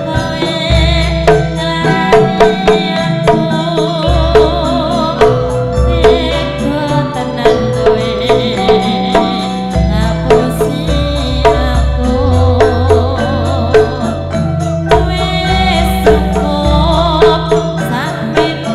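Javanese gamelan playing a slow tayub gending, with a woman's wavering singing voice over held metallophone notes and regular drum strokes.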